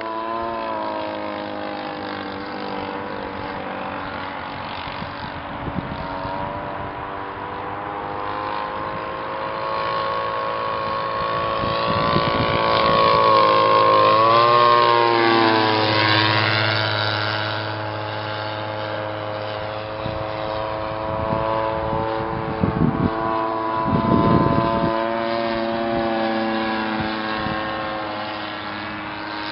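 Zenoah Z62 two-stroke petrol engine of a one-third-scale model biplane, geared through a reduction unit, running steadily in flight. It grows louder as the plane comes by close about midway, and its pitch drops as the plane passes, then fades as it flies away.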